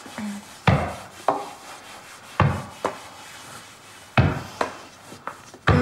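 Hard knocks on wood, mostly in pairs about half a second apart, recurring every second and a half or so.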